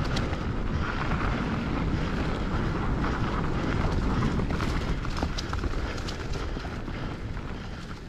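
Wind noise on the microphone and a hardtail mountain bike's knobby tyres rolling over dirt and dry leaves, with scattered sharp rattles and clicks from the bike over the rough trail. The rumble eases off a little near the end.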